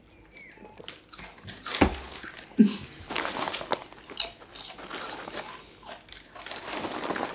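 People crunching and chewing ridged Walkers Max potato crisps, starting about a second in and growing denser, with the foil crisp packets rustling as hands reach in.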